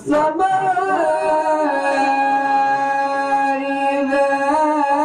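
Man reciting the Quran in the melodic tilawat style, holding one long drawn-out note with ornamental turns in pitch at the start and again about four and a half seconds in.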